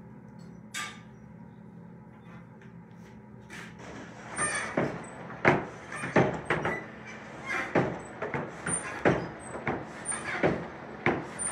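Hand-worked bellows of a coal forge being pumped to heat the iron: an uneven run of short creaks and puffs of air, about one to two strokes a second, starting about four seconds in, with faint high squeaks from the mechanism.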